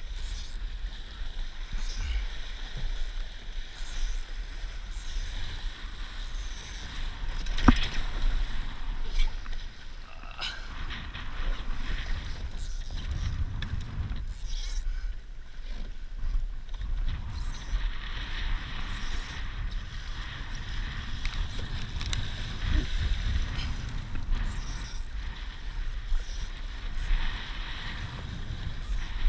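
Wind noise on the microphone over the rush and splash of water along a Laser sailing dinghy's hull, with spray coming over the bow in strong wind. A single sharp knock about eight seconds in is the loudest sound.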